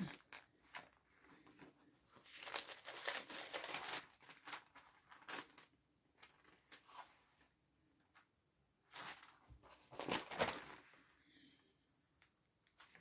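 Pages of a Bible being turned and rustled, in several short, faint bursts of crinkling with near-silent pauses between.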